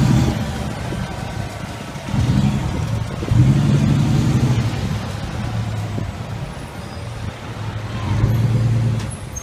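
Fire truck's diesel engine revving as the tower ladder pulls away through the intersection: a low engine drone that swells three times, loudest about three and a half seconds in.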